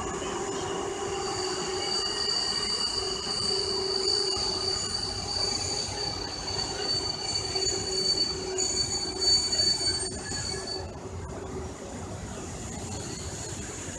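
Passenger coaches of a departing locomotive-hauled train rolling past, their wheels squealing on the rails in several steady high tones over the rumble of the wheels. The highest squeal stops about eleven seconds in.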